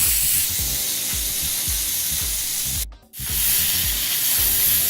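Rib-eye steak searing in a hot grill pan with butter and oil: a steady, even sizzle, with a brief sudden gap about three seconds in.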